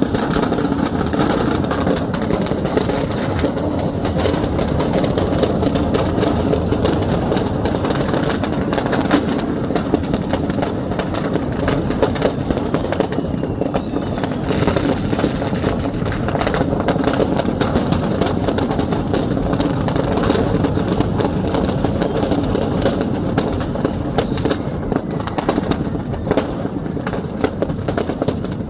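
A burning stock of firecrackers going off without a break: a dense, continuous crackle of small bangs and pops over a loud rushing din.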